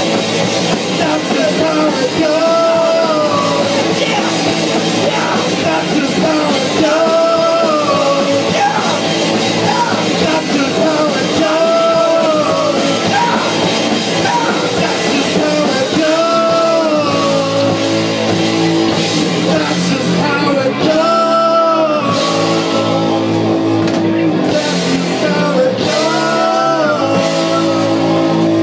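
Live rock band playing: distorted electric guitars, electric bass and a drum kit, with a man singing into a microphone. A melodic phrase comes round about every four to five seconds.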